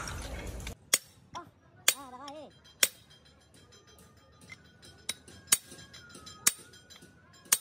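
Sharp metallic clinks of steel truck-gearbox gears and parts being handled and fitted on the shaft, about eight separate clinks each with a short ring. Before them, in the first second, a burst of rough noise cuts off suddenly.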